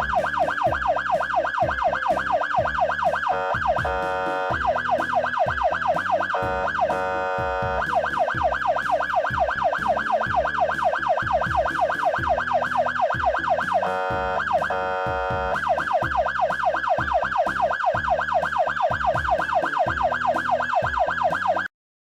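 Police car siren in a fast yelp, rising and falling about five times a second, with a few brief held tones between runs; it cuts off suddenly near the end.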